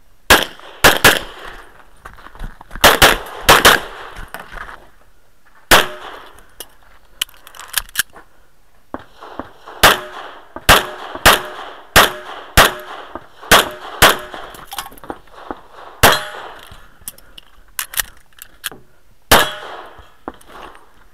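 Stainless 1911-style semi-automatic pistol fired through a practical-shooting stage: about twenty shots at an irregular pace, many in quick pairs, with a short metallic ringing after some of them.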